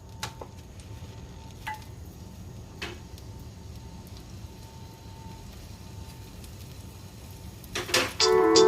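Crushed garlic sizzling steadily in hot oil in a pan, with a few light clicks of a utensil.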